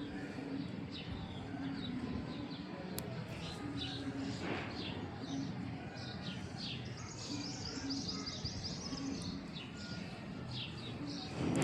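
Birds chirping in short, scattered calls, with a rapid high trill about seven seconds in.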